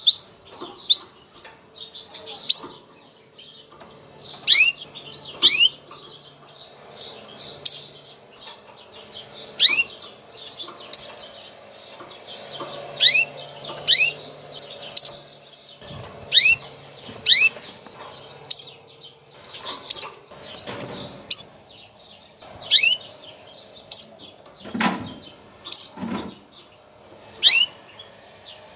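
Female canary giving its mating call: short, sharp chirps, each a quick falling sweep, repeated every second or so. It is the call used to stimulate male canaries into breeding condition.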